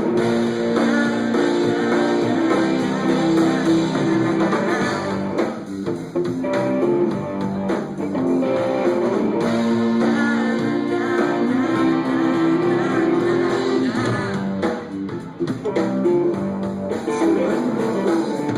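Live rock band playing an instrumental passage between sung verses, led by electric guitar over bass and drums.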